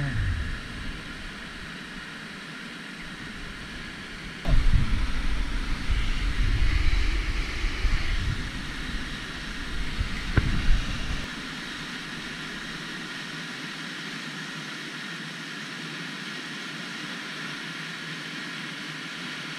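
Steady rushing of a whitewater rapid pouring over a rock ledge into a hole. From about four to eleven seconds there is a louder stretch with low rumbling on the microphone and a single sharp click near the end of it.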